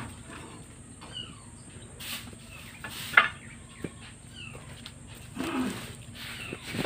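Leaves and stalks rustling and brushing as someone pushes through dense undergrowth, with the loudest brush about three seconds in. Birds give short falling calls in the background.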